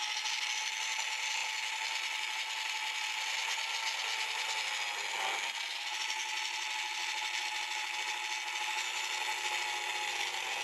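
Dremel rotary tool running steadily with a number 69 drill bit, drilling small spike holes into wooden ties. Its pitch dips briefly about five seconds in.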